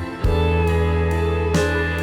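Instrumental background music with slide guitar and plucked notes over a steady bass.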